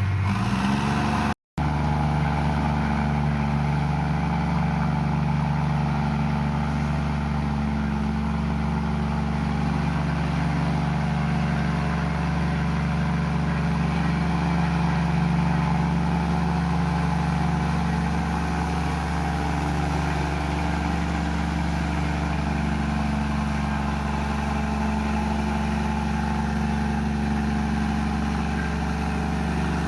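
Komatsu bulldozer's diesel engine running steadily at working speed, with a brief dropout about a second and a half in.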